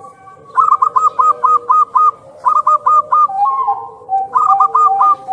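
Zebra dove (perkutut) cooing: three runs of quick staccato notes, about six, then four, then four, with a lower, longer note between the second and third run.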